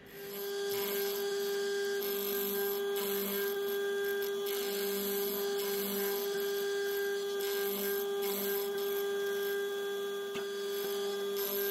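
Mill drill running steadily, its spindle driving a twist drill into a cast-iron casting: a steady motor and gear whine over the sound of the cut.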